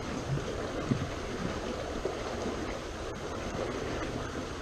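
Steady rush of moving water, with a light knock about a second in and a faint click about three seconds in.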